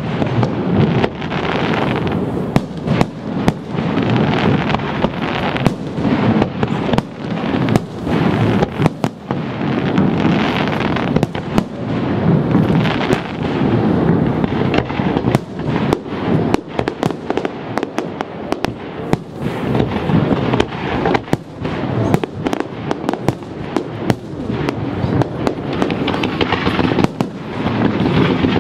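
Aerial fireworks display: shells bursting in a rapid, unbroken run of sharp bangs and booms over a continuous rumble.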